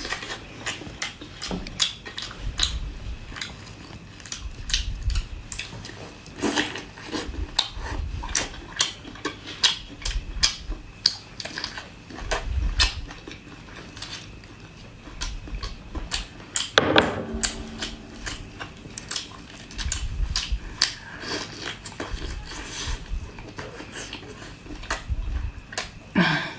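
Close-miked eating: biting and chewing big tiger prawn meat, with many wet clicks and crackles. A short vocal sound comes about two-thirds of the way in.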